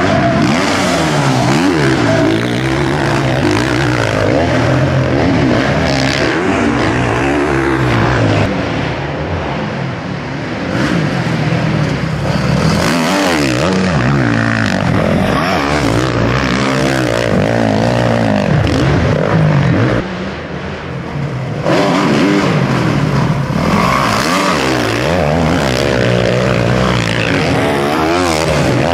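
Several 500 cc motocross bikes racing, their engines revving up and down over and over as the riders work the throttle through turns and jumps. Two short lulls come about a third and two-thirds of the way through.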